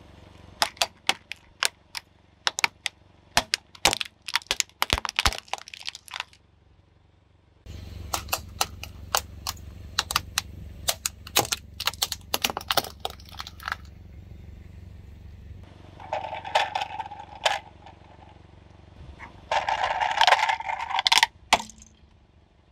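Pop-it fidget toys crushed under a car tyre: rapid, irregular sharp pops and cracks, with a low hum underneath. Two louder grinding crunches come near the end.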